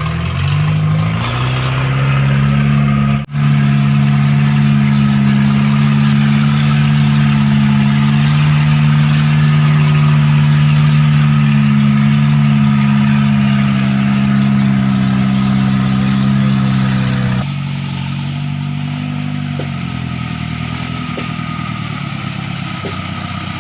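A vehicle engine held at high, steady revs under heavy load, straining along a rain-damaged road. A very brief dropout comes about three seconds in, and about two-thirds of the way through the revs fall away and the engine runs lighter.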